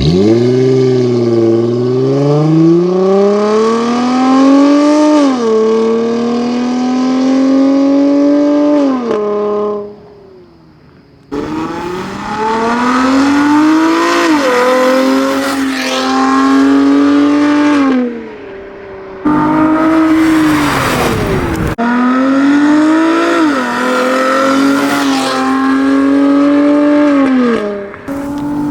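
Dodge Charger SXT's 3.6-litre V6 through a dual 2.75-inch stainless cat-back exhaust, accelerating hard in several pulls. The engine note climbs steadily, then drops back at each upshift. About two-thirds of the way in there is a short stretch of rushing noise.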